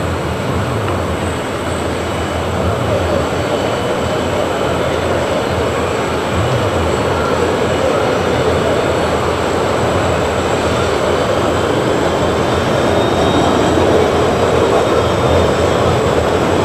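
Steady jet aircraft noise on an airport apron, a continuous rumbling roar that grows slightly louder toward the end.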